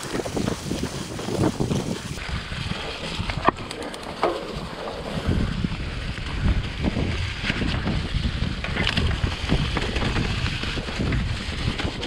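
Mountain bike ridden down a wet, muddy trail: wind rushing over the microphone, tyres going through wet mud, and a run of sharp knocks and rattles from the bike over rough ground.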